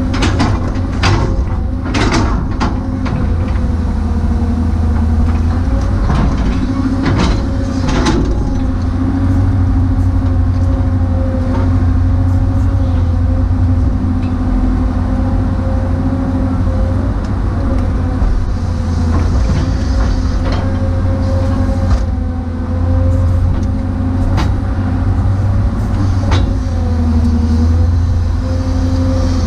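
Hydraulic excavator's diesel engine and hydraulic pump running steadily under load inside the cab, a low drone with a steady whine over it. Occasional clanks and knocks as the machine digs and swings, a few close together near the start and again about seven to eight seconds in.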